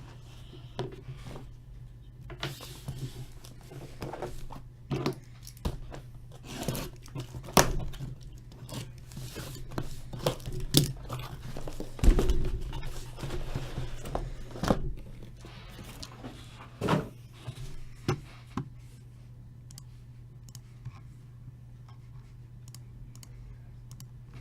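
Cardboard trading-card boxes and their case being handled and torn open: a string of tearing, crinkling and knocks as boxes are set down. It stops about 19 seconds in, leaving only a steady low hum.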